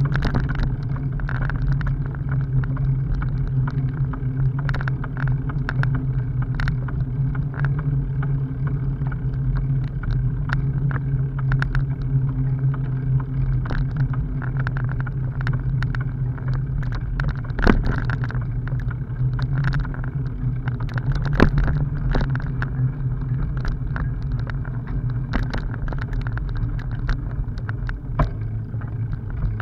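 Bicycle riding over a bumpy dirt forest trail: a steady low hum of tyres and frame vibration with frequent small rattles and clicks from the bumps, and a couple of sharper knocks in the middle.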